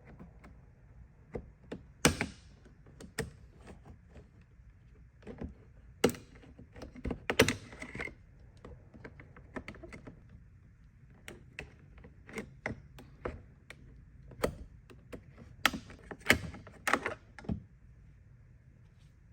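Plastic trim tool prying a plastic door-handle trim panel loose on a Mitsubishi Outlander door: scattered clicks, taps and scrapes, with a few sharper plastic snaps and knocks as the clips give.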